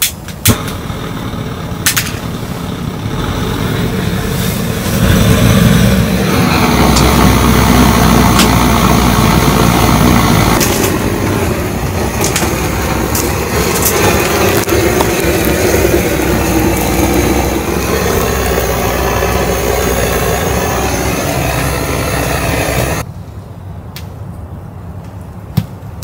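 Gas torch on a butane canister clicked a few times with its igniter, then burning with a loud, steady roar that grows stronger about five seconds in and cuts off abruptly near the end.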